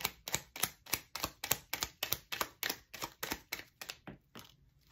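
A deck of tarot cards being shuffled hand to hand, the cards snapping together in a steady rhythm of about four clicks a second, which thins out and stops near the end.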